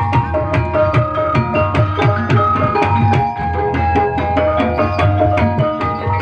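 Javanese gamelan music for an ebeg trance dance: kendang hand drums beating a quick, busy rhythm under a repeating melody of struck metallophone tones.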